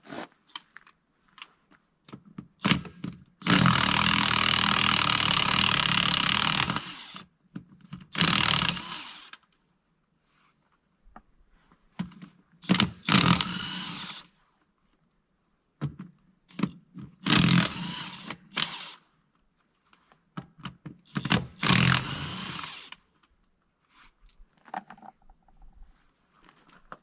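Power tool run in repeated bursts on the tractor's front wheel bolts: one long run of about three seconds, then four shorter runs of a second or two with pauses between.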